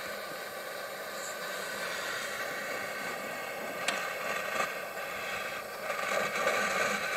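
Butane torch lighter's jet flame hissing steadily as it lights the sawdust in a smoke generator, with a sharp click about four seconds in.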